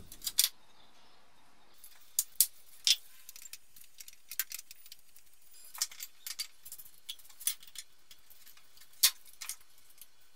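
Scattered metallic clinks and knocks of hand tools and engine parts being handled while drive belts are taken off a car engine, with several short clicks and one sharper clink about nine seconds in.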